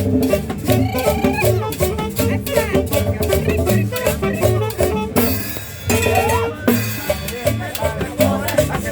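Tropical dance music with a steady drum-kit and percussion beat. About five seconds in the beat breaks off briefly, with a hissing wash in its place, before the drums come back in.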